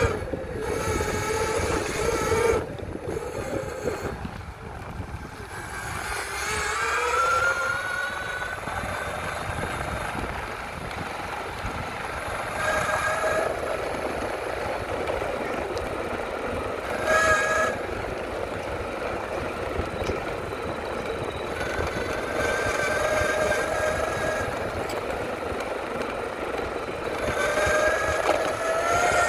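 SYL-08 V3 electric mountainboard's motors whining over a steady rumble of wheels and wind. The whine rises in pitch as the board speeds up, most clearly about seven seconds in and again near the end, and holds steady in between.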